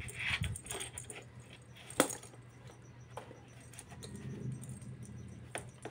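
A kitten playing with a small perforated plastic toy ball in a cardboard box: light clicks, rattles and scuffs of the ball and paws on the cardboard, with one sharp click about two seconds in.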